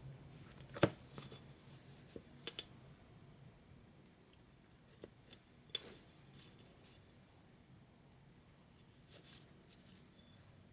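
Scattered light metallic clinks and taps of a brake caliper body and its pistons being handled on a workbench. The loudest knock comes about a second in, a short ringing clink follows at about two and a half seconds, and a few fainter taps come after.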